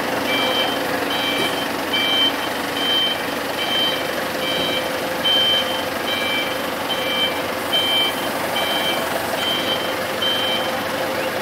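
Forklift's reversing alarm beeping steadily, a two-tone beep a little more than once a second, over the forklift's engine running. The beeping stops near the end.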